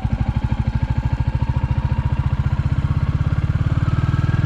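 Royal Enfield Classic 350 single-cylinder engine running under way, its exhaust beating in an even rapid pulse. The beat quickens and grows a little louder in the last second or so as the bike picks up revs.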